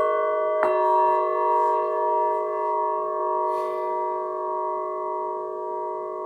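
Singing bowl struck once about half a second in, then ringing on with several held tones that waver slowly as the sound gradually fades.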